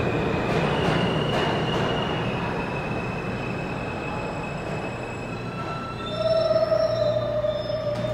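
New York City subway train running on the rails, its rumble easing off over the first few seconds, with thin high wheel squeals. About six seconds in, a louder squeal sets in and holds for about two seconds.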